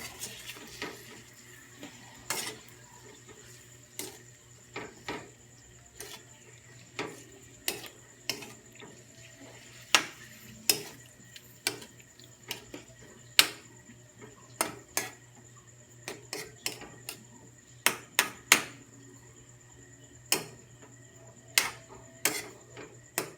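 Metal utensil clinking and knocking against a cooking pan while chicken wings are stirred in their sauce: sharp, irregular clinks about once or twice a second, some much louder than others.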